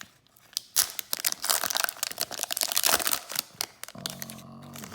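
Crinkling and crackling of a hockey card pack's foil wrapper being handled, in quick dense crackles that ease off after about three seconds. A brief low hum follows near the end.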